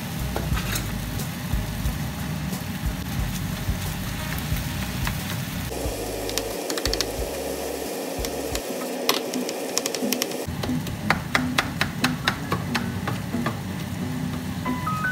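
Ground chicken sizzling in a nonstick frying pan while a plastic meat chopper breaks it up. From about the middle on come many quick taps and scrapes of the chopper against the pan.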